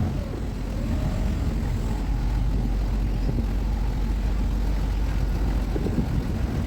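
Steady low mechanical rumble of a running engine or motor.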